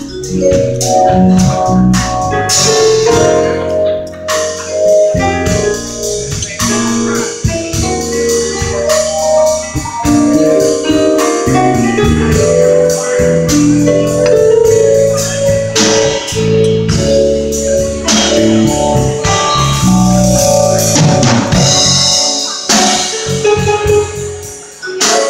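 Live jazz instrumental passage: a mallet keyboard instrument plays a melodic solo of ringing struck notes over a drum kit accompaniment.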